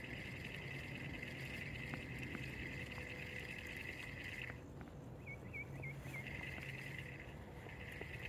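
A steady, high-pitched, pulsing chorus of calling animals that breaks off about halfway through. In the gap a bird gives four quick chirps, then the chorus starts up again, with a few faint clicks underneath.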